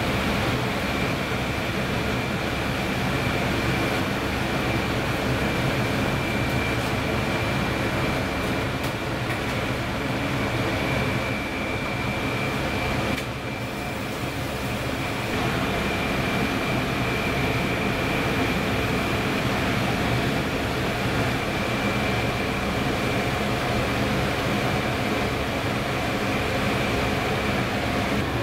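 Water at a rolling boil in an aluminium pot on a gas burner: a steady bubbling, rumbling noise with a faint high whine held throughout.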